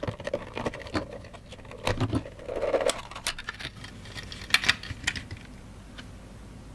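Plastic case of a Toptronic T502KJ digital thermometer being pried apart and opened by hand: irregular clicks and knocks of plastic parts with a brief scraping rustle, thinning out after about five seconds.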